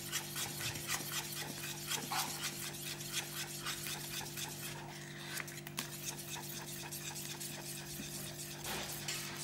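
Wire whisk beating thick, freshly cooked pastry cream in a stainless steel saucepan: quick, even scraping strokes of the whisk against the pan, over a low steady hum.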